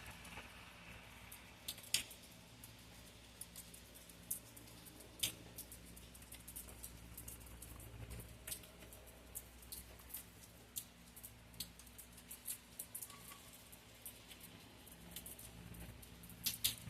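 Faint, irregular sharp ticks, a few every second, like scattered raindrops tapping a hard surface, over a steady low hum.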